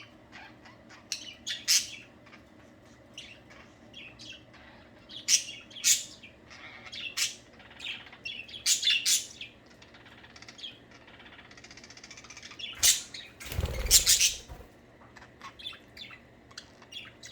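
Pet budgerigars chirping and chattering in short, high, scattered calls, with a loud rustling burst about fourteen seconds in.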